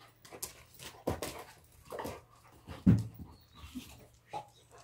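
Pet dogs panting, tired out from playing fetch, with one short louder sound about three seconds in.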